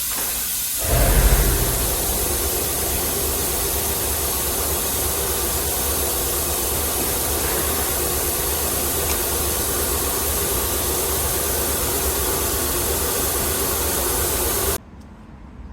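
A machine starts about a second in and runs steadily with a low hum and a hiss, then cuts off abruptly near the end.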